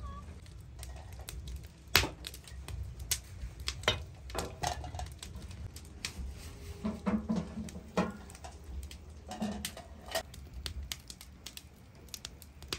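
Irregular light clicks and knocks, as of things being handled, with one sharper knock about two seconds in.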